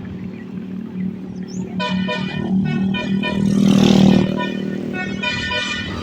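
Bus basuri telolet horn, a multi-tone musical air horn, playing a pulsing, melody-like run of notes from about two seconds in, over the steady low hum of a bus engine. A loud rushing burst of noise peaks around four seconds in.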